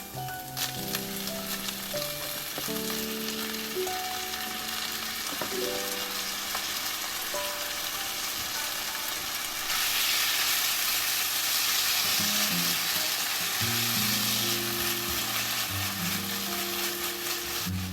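Food sizzling and frying in a pan while being stirred, with a few clicks of the utensil against the pan in the first seconds. The sizzle grows louder about ten seconds in, then eases again near the end.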